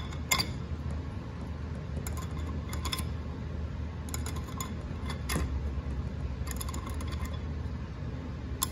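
Steel and friction clutch plates clinking lightly as they are set into a TH350 clutch drum: scattered short metallic clicks, a few seconds apart, over a steady low hum.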